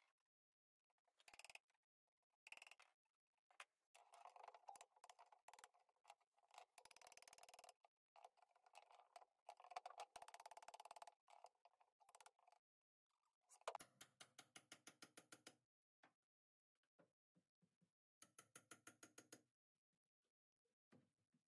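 Faint, intermittent scraping and creaking of a steel pry bar levering against the wooden bed under a boat engine. Two runs of rapid creaking come about 14 and 18 seconds in.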